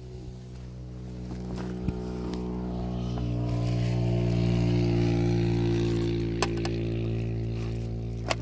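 A motor vehicle engine running at a steady pitch, growing louder to a peak about five seconds in and then fading as it passes. A few light clicks sound over it.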